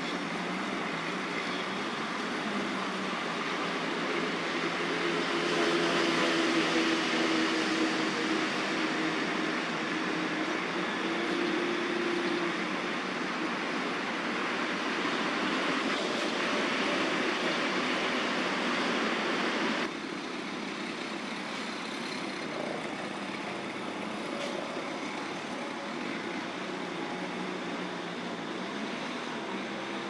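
Steady distant city traffic noise, an even hiss with a faint low drone that swells for several seconds a few seconds in. The level drops suddenly about two-thirds of the way through.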